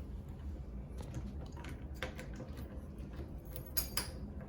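Small metallic clicks and scrapes of a Kwikset SmartKey rekeying tool being worked into the hole beside the keyway of a doorknob lock cylinder, with a sharper click about four seconds in.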